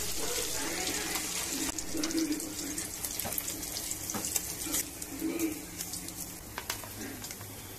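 Fish deep-frying in hot oil in a kadai: a steady sizzling hiss with many small crackles and pops, loudest in the first couple of seconds.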